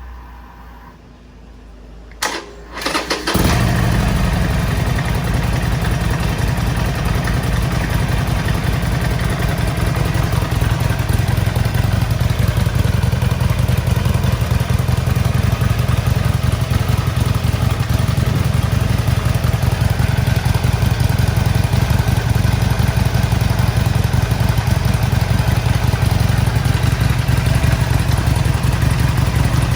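2021 Harley-Davidson Iron 1200's air-cooled V-twin on its stock exhaust, cranked on the electric starter about two seconds in and catching a second later, then idling steadily.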